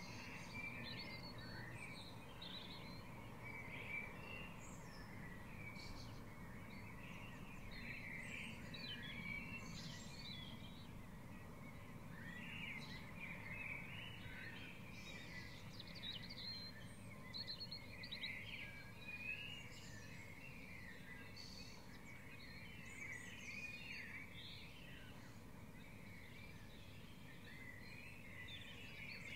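Dawn chorus: many songbirds singing and calling at once, with dense overlapping chirps and trills, over a steady low background rumble.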